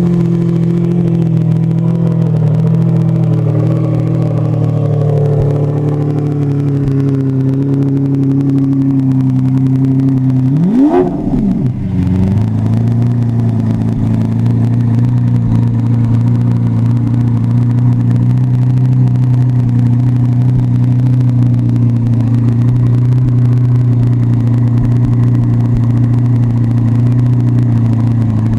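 Lamborghini Aventador LP700-4's 6.5-litre V12 idling just after startup, its idle speed slowly easing down over the first several seconds. About eleven seconds in it gives one quick rev that rises and falls, then settles into a steady idle.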